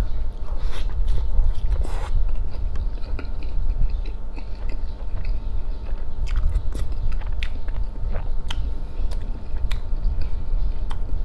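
Close-up biting and chewing of a roti john, a soft bread roll stuffed with egg, meat and cheese, with a scatter of small sharp wet mouth clicks over a steady low rumble.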